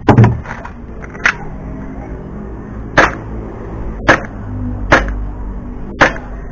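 Gas blowback Glock 17 airsoft pistol firing single shots, each a sharp crack with the slide cycling. About six shots fall roughly a second apart.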